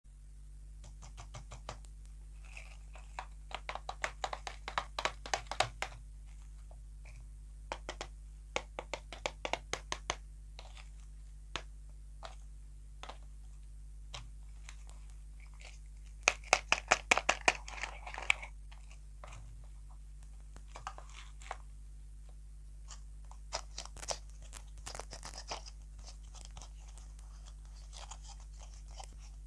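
Fingertips and nails tapping, scratching and handling round plastic toy-lollipop shells, in clusters of rapid crisp clicks with quieter gaps between, over a faint steady low hum.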